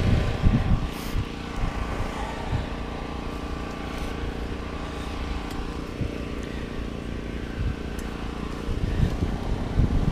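A steady low engine drone, with a few light clicks and knocks as an aluminium folding chair is handled.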